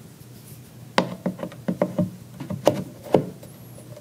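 Hard statue pieces knocking and clicking together as the sign panel is handled and fitted into its peg and slots on the back of the statue: an irregular run of about a dozen light knocks starting about a second in, the loudest two near the end of the run.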